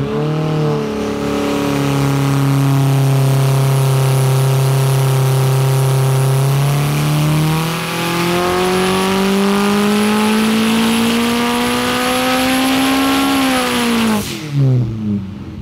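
Turbocharged stock Honda K24 four-cylinder with a Skunk2 Pro Series intake manifold making a baseline pull on an engine dyno. The engine holds a steady note for several seconds, then climbs steadily in pitch for about six seconds with a faint high whistle above it. It drops away quickly near the end as the run finishes.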